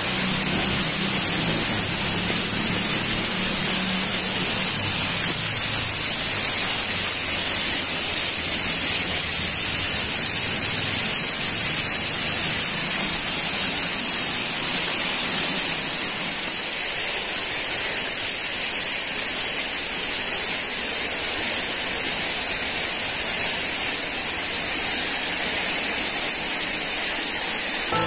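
Running water splashing steadily, an unbroken rushing hiss with no pauses.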